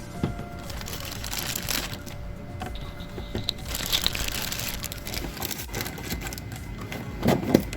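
Plastic packaging and toy parts being handled: crinkling, rustling and light clicks, with a louder clunk near the end.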